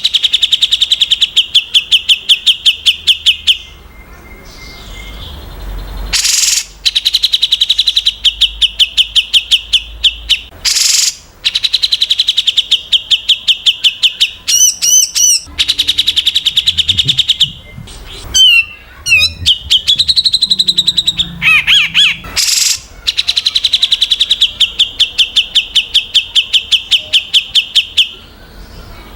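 Recorded songbird song of the sort played to train competition cage birds: long runs of fast, sharp repeated notes, each run lasting a few seconds. The runs are broken by short harsh raspy calls and a few twisting whistled phrases.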